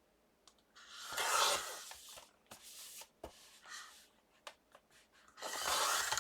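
Paper trimmer blade sliding through cardstock twice, each cut lasting about a second, with small clicks of paper handling in between.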